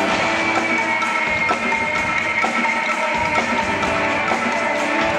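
Music with held tones and a running percussive beat.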